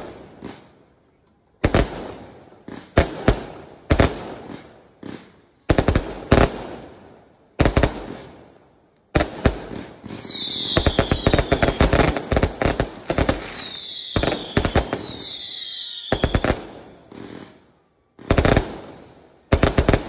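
A 6-inch, 398-shot cake firework firing: separate sharp bangs, each trailing off. About nine seconds in comes a dense volley of rapid pops carrying three falling whistling tones, then single bangs again near the end.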